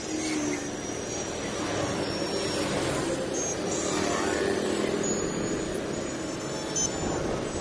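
Steady din of heavy city road traffic: cars, motorbikes and auto-rickshaws running past in a continuous stream.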